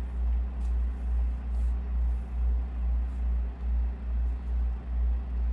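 A low droning hum that swells and fades about twice a second, with nothing else clearly heard over it.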